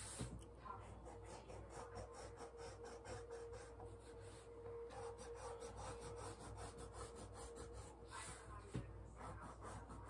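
Quick rubbing strokes of writing or colouring on a poster board, about three or four a second, with a faint steady hum under them through the middle stretch.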